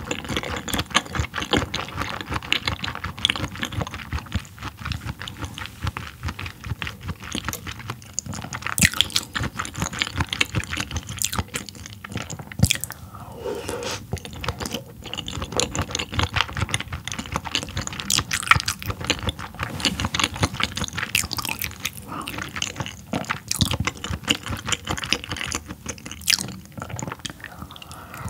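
A person chewing raw yellowtail sashimi right at the microphone: a steady run of moist, irregular mouth clicks and smacks with the odd louder bite.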